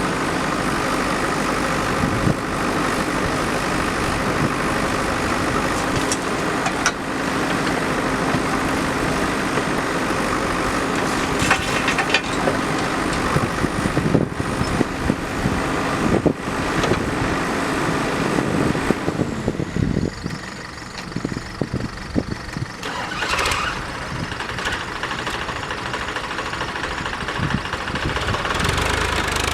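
Diesel engine of a JCB backhoe loader running steadily, with scattered sharp clanks. It drops quieter for a few seconds about two-thirds of the way through, then picks up again.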